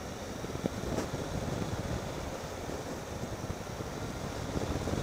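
Triumph Tiger 800 XCx motorcycle running, heard through steady wind noise on the microphone.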